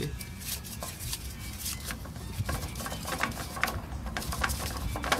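DEF filter housing cap being unscrewed by hand from a truck's DEF pump, giving irregular light clicks and scrapes.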